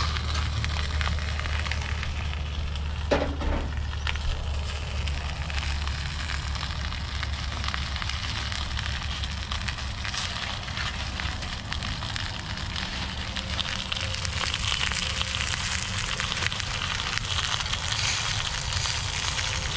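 Propane burner running steadily under a cast iron skillet, with the chicken in it sizzling and crackling. Aluminum foil crinkles as it is lifted off with tongs.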